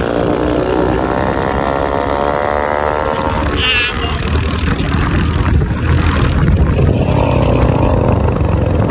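Motorcycle engine running on the move, its pitch falling slowly over the first few seconds as the revs drop, then settling into a low rumble with road and wind noise. A brief high-pitched sound cuts in about three and a half seconds in.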